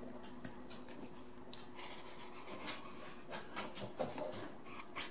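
Faint scratching and rubbing of a fine-liner pen's tip drawing strokes on sketchbook paper, with a few soft ticks.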